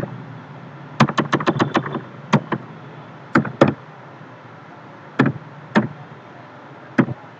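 Computer keyboard keystrokes: a quick run of about seven key taps about a second in, then slower single taps and pairs a second or so apart as characters are typed one at a time.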